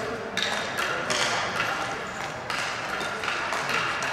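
Ball hockey play: taps and thuds of sticks and the ball in an echoing rink, over a steady background din.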